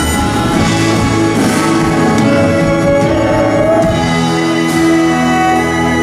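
Live band playing an instrumental passage without vocals: strummed acoustic guitar under long held notes from bowed strings, violins and cello.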